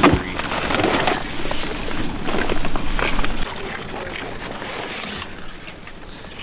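Decoy gear being handled in a boat: a sharp knock at the start, then scattered knocks and rustling of the canvas decoy bag and line, over wind and water noise. The handling dies down after about three and a half seconds.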